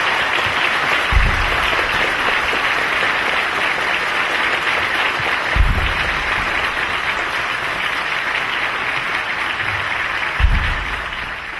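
Large crowd applauding steadily, with three short low thumps a few seconds apart.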